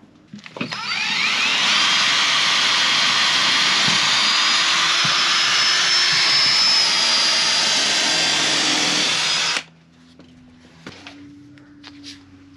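A small electric motor spins up about half a second in, runs steadily with a high whine for about nine seconds, then cuts off suddenly.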